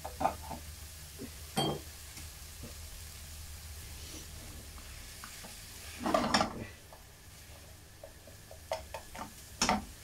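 Utensil stirring and scraping egg and frozen peas around a non-stick pan over a faint, steady sizzle, the sizzle low because the pan's heat has dropped. A few knocks against the pan, the loudest cluster about six seconds in and several more near the end.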